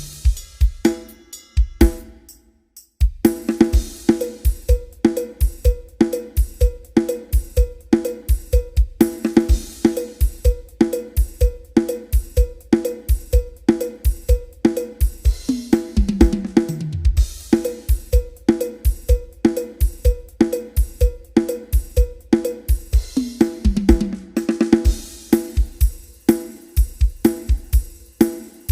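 Drum kit playing a steady beat of kick, snare, hi-hat and cymbals. It stops briefly about two seconds in, then resumes. Twice there is a tom fill that falls in pitch, once about halfway through and again near the end.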